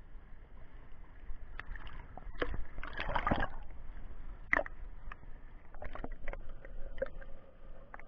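Pool water sloshing and gurgling against a camera at the surface, with a burst of splashing about three seconds in as it goes under. After that the sound turns muffled underwater, with scattered short bubbly clicks.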